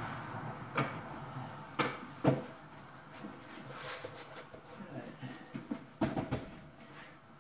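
Irregular knocks and taps, the sharpest about two seconds in, with a brief scraping sound in between, from a white trim strip being handled and pressed into place along the wall on a vinyl floor.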